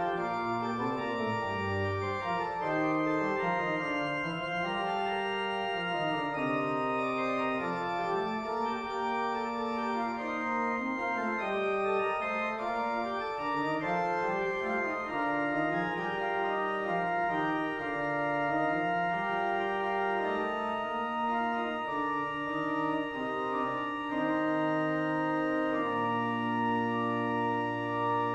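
Organ playing sustained chords with slowly moving melody and bass lines, then settling on a long held chord near the end.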